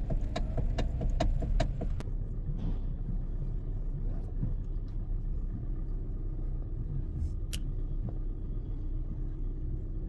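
Hyundai i30 steering column clunking as the wheel is turned, a quick run of knocks several times a second for about two seconds; this is typical of a crushed rubber spider bushing, the coupler in the electric power-steering column. Then the wheel turns with no knocking over a steady low rumble, the spider bushing renewed.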